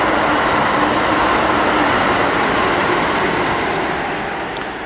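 A train going by at the station, loud and steady, fading away over the last second and a half.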